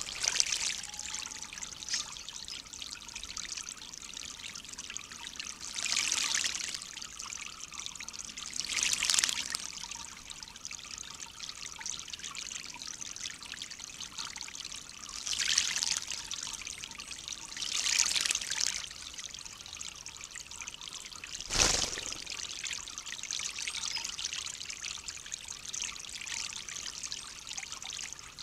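Male bullfinch bathing in shallow water on a stone water feature: short bursts of splashing as it beats its wings in the water, about six times, over a steady trickle of running water. The last burst, about three quarters of the way through, is the sharpest and loudest.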